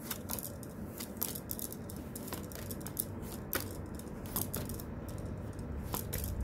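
Stiff tarot cards being slid one at a time from the front of a hand-held deck to the back. Each move gives a short, crisp snap or rustle, irregularly, a few times a second.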